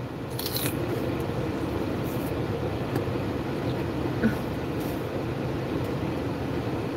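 Crunchy bites and chewing of a raw celery stick close to the microphone, with a sharp crunch about half a second in and softer crackles later. Under it, a steady low rumble of the car cabin.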